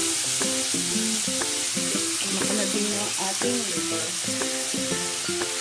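Chicken pieces, mushrooms and Chinese sausage sizzling steadily as they fry in a pan, under background music of plucked notes.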